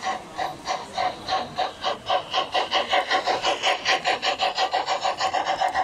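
LGB garden-scale model steam train running past close by, making a rapid, even clatter of about four beats a second. It grows louder over the first two seconds as the locomotive and coaches come level.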